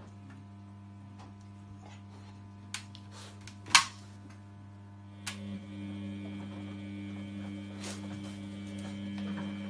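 Front-loading washing machine running with a steady low hum as its drum turns the laundry. A few sharp taps sound over it, the loudest about four seconds in, from a puppy's paws knocking on the glass door.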